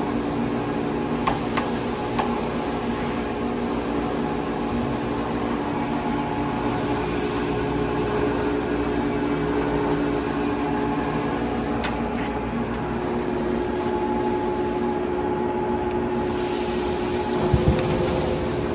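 A 42-inch Blanchard rotary surface grinder running, giving a steady machine hum with several steady tones. A couple of light clicks come in the first few seconds, and a heavier knock comes near the end.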